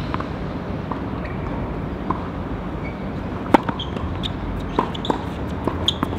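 Tennis balls being struck and bouncing: a series of sharp pops and thuds at uneven intervals, the loudest about three and a half seconds in, over steady background noise.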